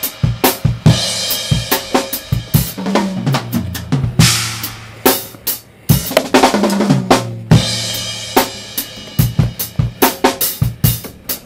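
Background music with fast, heavy drums and cymbals over a stepping bass line.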